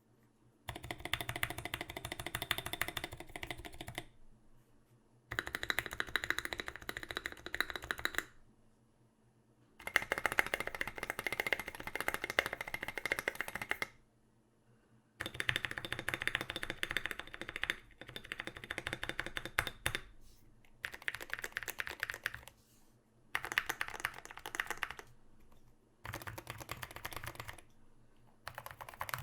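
Typing on a KBD75v2 mechanical keyboard with an aluminum plate, Zealios v2 65g tactile switches and SA-profile doubleshot ABS keycaps. Fast key clacks come in about seven runs of a few seconds each, with short pauses between them.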